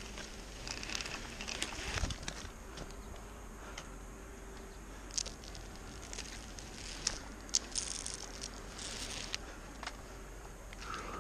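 Tree climber's spiked climbing spurs and boots scraping and biting into pine bark, with irregular scratchy rustles and short clicks of harness and rope gear as he moves down the trunk.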